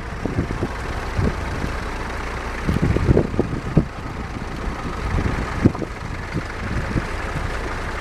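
Distant vintage tractor engines running, mixed with wind buffeting the microphone in irregular low gusts.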